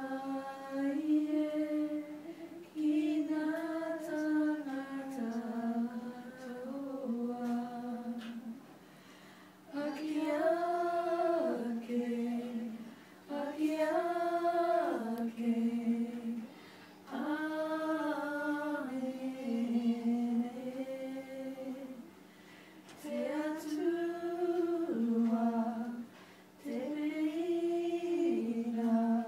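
A small group of women singing a Māori waiata unaccompanied, in held phrases a few seconds long with short breaks between them.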